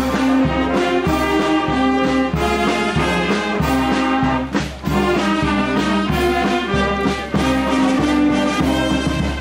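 Brass band playing a march, with sustained brass notes over a steady low drum beat about twice a second.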